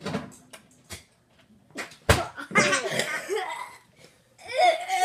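Boys laughing and reacting with short non-word vocal sounds, with one sharp thump about two seconds in and a drawn-out groaning voice near the end.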